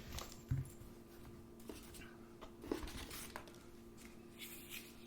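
Quiet handling of small boxed items and their packaging: a few soft knocks and brief rustles over a low steady hum.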